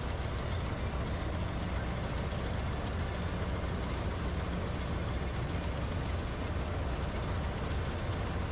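PREET 4949 combine harvester's 102 HP engine running steadily, a constant low machine hum.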